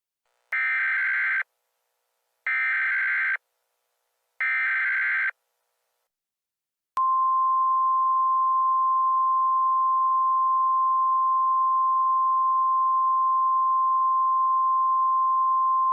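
Emergency Alert System header: three short bursts of shrill data tones about two seconds apart. About seven seconds in comes a single-pitch steady attention tone of the 1050 Hz weather-radio kind, held without a break.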